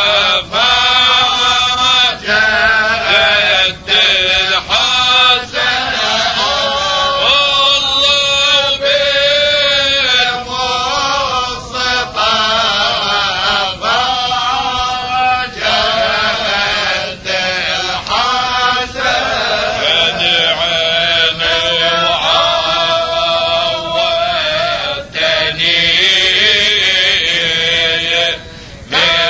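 Male voice chanting an Arabic tahlila, an Islamic devotional chant, in long held, ornamented phrases with short breaths between them.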